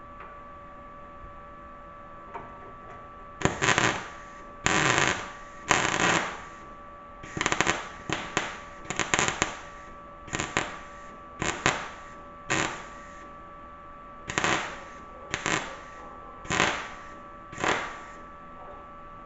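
Arccaptain MIG200 MIG welder laying a run of short tack or stitch welds: about fifteen separate bursts of arc noise, each under a second long, with a steady hum behind them.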